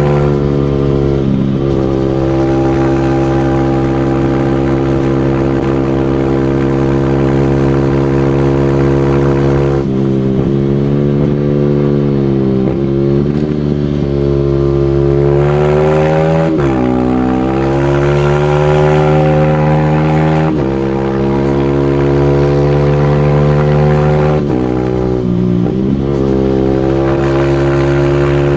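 Single-cylinder motorcycle engine running hard at high, steady revs. Its note briefly dips and climbs back several times, most deeply about 16 seconds in.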